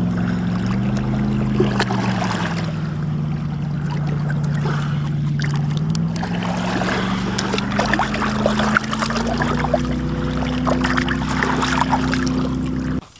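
Boat's outboard motor running, its pitch slowly falling and rising as the throttle changes, with scattered knocks and clicks over it; it cuts off suddenly near the end.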